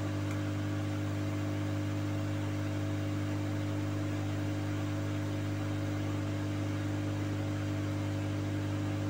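Steady electrical mains hum, a low buzzing drone of several fixed pitches that never changes.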